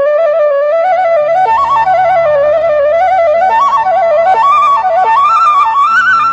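Bansuri (Indian bamboo flute) playing a flowing, ornamented melody of quick stepping notes that rise and fall, climbing higher near the end, over a low sustained drone.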